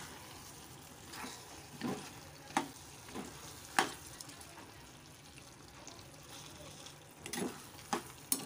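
A spoon stirring sliced taro root (arvi) in sizzling masala in a steel pot, scraping and knocking against the pot now and then over a steady sizzle.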